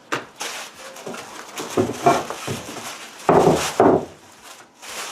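Knocks and clunks of heavy drill press parts being handled, with some rubbing, the loudest two close together about two-thirds of the way through.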